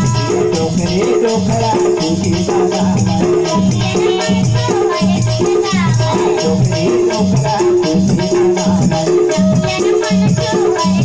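Live devotional bhajan music: a harmonium holds chords over hand drums and jingling percussion keeping a steady, fast beat, with a man's voice singing in places.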